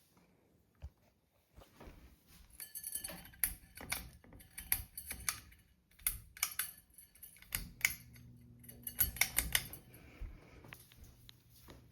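Ceiling fan being worked: a run of sharp clicks and light metallic rattling, like a pull-chain switch being pulled, then a steady low electrical motor hum that starts about halfway through and keeps going.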